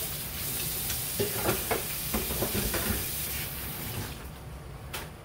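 Steady kitchen hissing with a run of knocks and clinks from about a second in, like utensils against cookware; the hiss cuts off about four seconds in.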